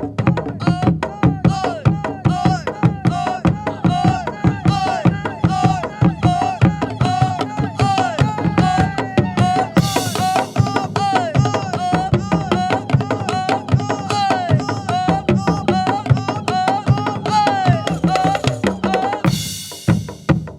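Traditional Sundanese percussion music: fast, dense drumming with many quick strikes, over a short repeating melodic figure that bends up and down in pitch. It stops abruptly at the very end.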